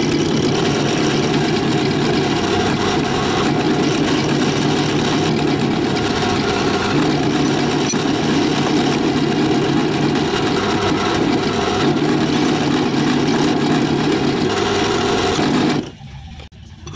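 Bench drill press running steadily as it drills a metal plate, then cutting off about a second before the end.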